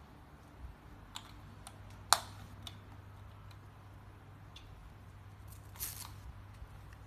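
Scattered light clicks and taps, with one sharp click about two seconds in and a short rustle near the end, over a low steady hum.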